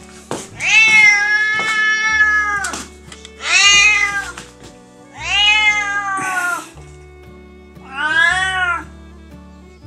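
Calico cat meowing four times in a hoarse, drawn-out voice; the first call is the longest, over two seconds, and the others about a second each. Background music plays underneath.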